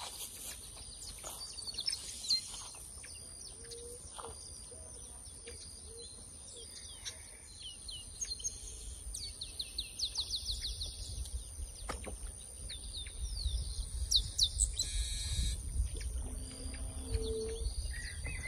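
Wild birds chirping and calling, with a fast trill about halfway through, over a thin steady high whine and a low rumble that grows near the end.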